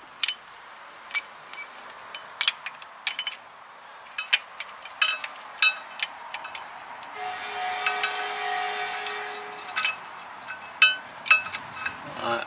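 Metal parts of a brake caliper piston wind-back tool clinking and clicking against a rear brake caliper as they are fitted by hand: a scatter of sharp metallic clicks. About seven seconds in, a steady humming tone lasts for about two and a half seconds.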